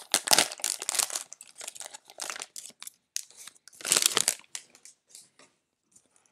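Cellophane wrapper of a trading-card pack crinkling and rustling as hands work it open, with a second loud burst of crinkling about four seconds in and only faint rustles after.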